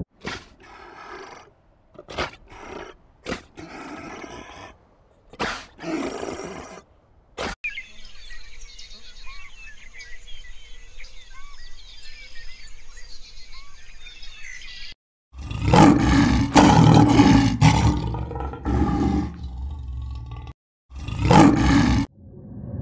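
A sea lion gives a series of short calls. Then come several seconds of small birds chirping, and after that the loudest part: long, deep roaring calls from a large animal, broken once by a short pause.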